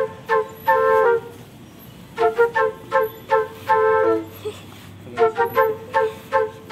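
Background music: a flute playing a short phrase of quick notes, repeated about every three seconds.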